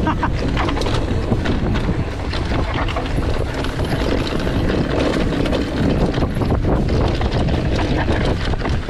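Wind rushing over the camera microphone as a mountain bike descends a dirt trail. The chain and frame rattle and clatter over bumps in many quick knocks.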